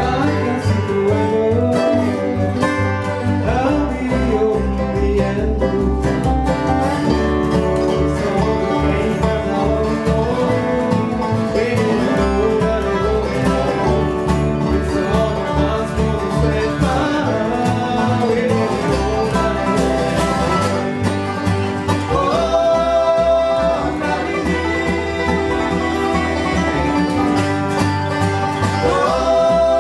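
Bluegrass band playing live: banjo, dobro with sliding notes, acoustic guitar and upright bass keeping a steady pulse underneath.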